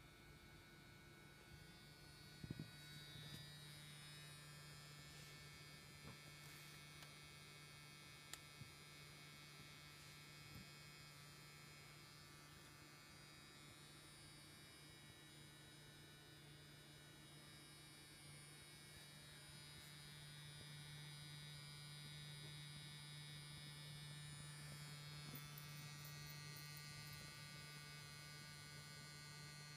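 Faint steady electric hum with a few light clicks; the hum grows a little stronger just after a click about two and a half seconds in.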